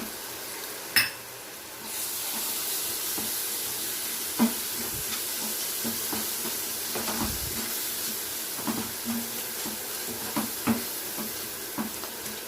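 A spoon stirring ginger-garlic paste into a pan of frying onion-tomato masala, with a steady sizzle that starts about two seconds in and scattered scrapes and clinks of the spoon against the pan.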